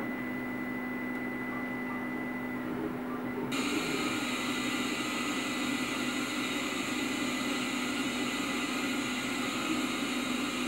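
Old CRT television speaker: a low steady drone with a thin high tone from the tape's soundtrack, then about three and a half seconds in a steady hiss of TV static starts suddenly as the picture turns to snow.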